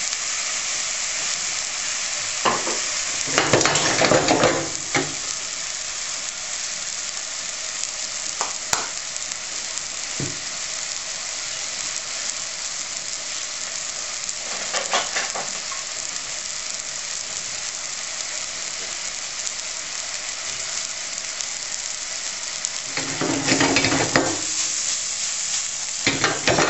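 A pan sauce of balsamic vinegar and white wine with radicchio sizzling and bubbling in a hot frying pan, a steady hiss, with a few brief louder bursts over it.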